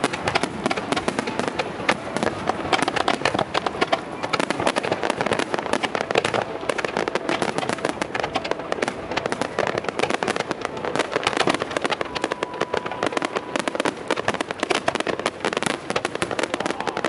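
Fireworks display: aerial shells and rising comets bursting and crackling in a dense, unbroken barrage, many sharp bangs a second.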